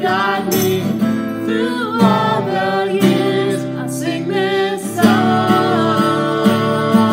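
A woman singing a children's worship song with a man's voice joining in, over a strummed acoustic guitar. About five seconds in they hold one long note.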